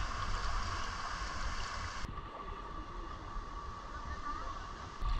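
River water flowing and lapping around someone wading, picked up close on an action camera's microphone with a low rumble underneath. About two seconds in the hiss of the water turns suddenly duller.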